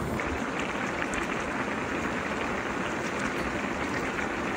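Rice boiling hard in meat broth in a large pot: a steady, dense bubbling, at the stage just after the rice is added and before it has soaked up the liquid.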